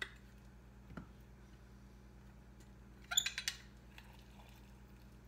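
Hand-held lemon squeezer pressing lemon halves over a glass bowl: a soft knock about a second in, then a quick run of sharp clinks a little after three seconds as the squeezer knocks against the glass bowl, over a low steady hum.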